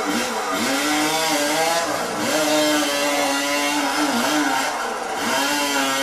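Two-stroke chainsaw running at high revs, its pitch dipping briefly a few times as the chain bites into the wood and bogs the engine, then climbing back.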